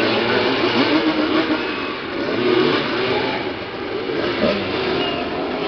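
Several motoball motorcycles' engines revving together, their pitches rising and falling and overlapping as the riders jostle for the ball.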